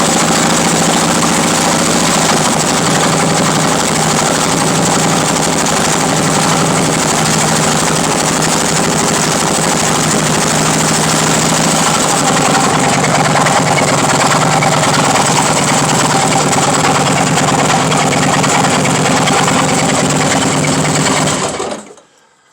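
Harley-Davidson V-twin engine idling steadily with a knock in it, the sound cutting off abruptly about a second before the end.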